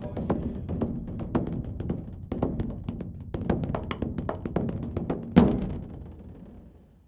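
Wooden fish (moktak) struck in a fast, even roll of hollow wooden knocks, about four a second, as an accompaniment to Buddhist chanting. It ends with one louder strike about five and a half seconds in, which rings out and fades away.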